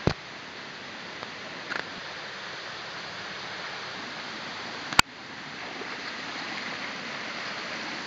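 Small waterfall pouring over a low rock ledge into a pool: a steady rush of water that grows somewhat louder from about six seconds on. A sharp click cuts through it about five seconds in.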